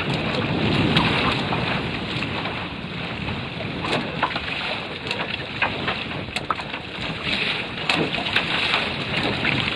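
Water rushing and splashing along the hull of a Prindle 16 catamaran under sail, with sharp irregular slaps of chop and spray against the hull. Wind buffets the microphone throughout.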